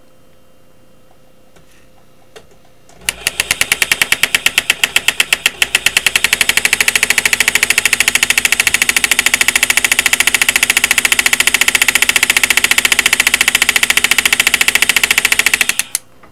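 Reciprocating impact engraving handpiece on a flex shaft, driven into a steel punch face: a very rapid hammering that starts about three seconds in, quickens over the next few seconds as the foot pedal is pressed, holds steady, and stops suddenly near the end. It is cutting the first outline line of a maker's-mark punch.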